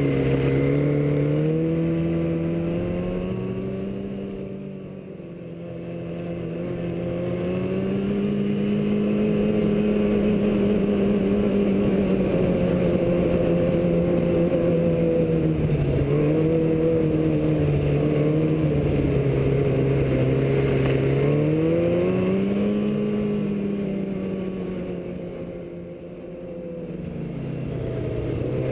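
Yamaha snowmobile engine running under throttle along a trail, its pitch rising and falling as the rider works the throttle. Twice the throttle comes off, about a fifth of the way in and again near the end, and the engine note drops and quietens before climbing back up.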